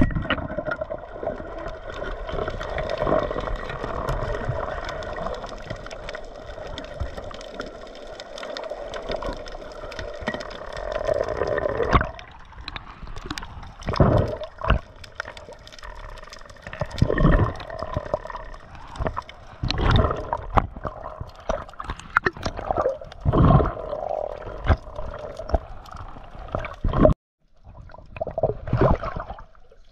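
Seawater gurgling and sloshing in the shallows. It is steady at first, then broken by irregular splashes from about twelve seconds in.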